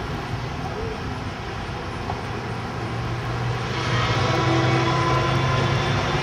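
A moving vehicle's engine and road noise, a steady low hum under a hiss; about four seconds in it grows louder and brighter.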